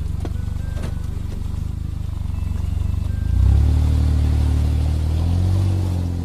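Suzuki Jimny's turbocharged three-cylinder engine idling through a Yoshimura aftermarket muffler. About three seconds in it is revved once, and the note jumps up and slowly sinks back toward idle.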